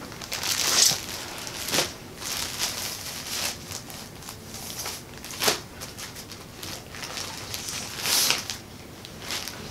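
Plastic clothing bags crinkling and rustling as they are handled, in uneven bursts, loudest about a second in and again near the end.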